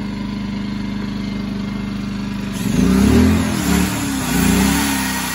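Champion 2000i inverter generator running steadily in eco mode. About two and a half seconds in, a corded electric drill powered by it starts up and runs in two spells, its pitch rising and falling, before easing off near the end.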